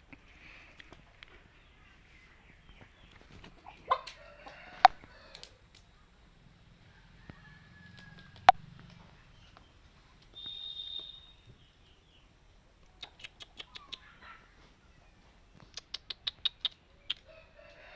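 Aseel chickens moving about, with scattered sharp knocks, quick runs of clicks and a short high call about ten seconds in.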